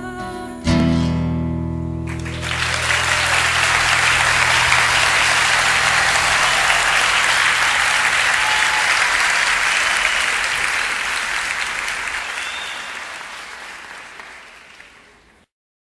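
Acoustic guitar playing the song's final chord, struck just under a second in and left ringing, then audience applause that starts about two seconds in, swells and fades away near the end.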